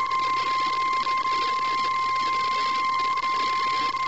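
NOAA Weather Radio 1050 Hz warning alarm tone: a single loud, steady, high-pitched tone over a constant hiss. It signals that a warning message is about to be broadcast.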